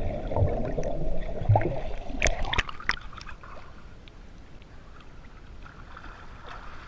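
Pool water heard through a submerged camera: a muffled rush of bubbles for about two seconds, then a few sharp splashes as it breaks the surface, then quieter lapping and sloshing of the pool water.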